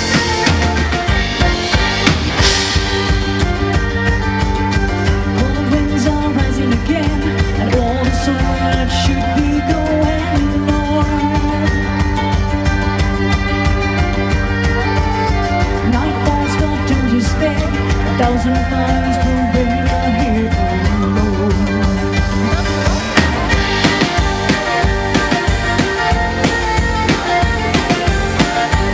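Live band music: a drum kit keeping a steady beat under a wavering melody line.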